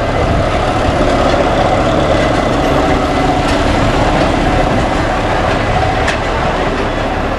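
Amusement-ride train running along its rail track with a steady rumble and a couple of faint ticks.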